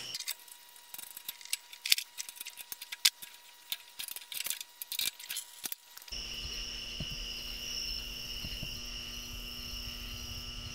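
Scattered small metal clicks and clinks of a wrench working the lock nuts on a mower light bracket, the loudest about two and three seconds in. After about six seconds there is only a steady faint hum with a high whine.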